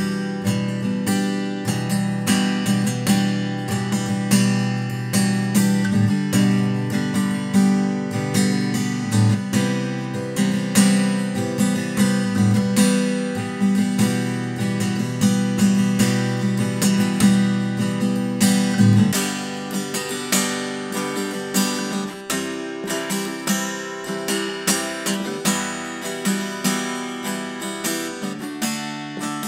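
Ibanez PF15ECE laminated-top cutaway dreadnought acoustic guitar strummed in chords, open soundhole at first. About two-thirds of the way through the same playing goes on with a soundhole plug fitted, and the low bass thins out.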